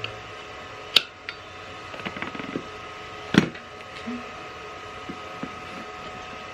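Tire levers knocking and clinking against a motorcycle wheel rim while the tire bead is pried on: two sharp knocks, about a second in and about three and a half seconds in, with lighter clicks between.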